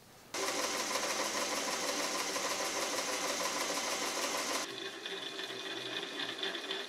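Drill press running, a twist drill boring through a flat steel strap: a steady motor whine with the grind of the bit cutting. About two-thirds of the way through the sound changes abruptly and turns duller.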